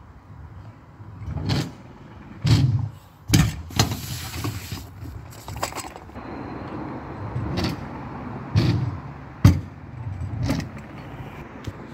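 Irregular knocks and rattles, about nine of them, over a rough rolling noise: stunt scooter wheels and deck running and clattering on skatepark ramps.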